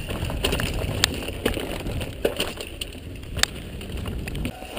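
Mountain bike riding fast down a dirt singletrack: wind rumbling on the microphone and tyres on dirt, with scattered sharp clicks and rattles from the bike over bumps.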